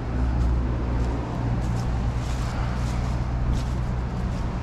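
A steady low rumble under the light crunch of footsteps on grass and leaf litter along a riverbank.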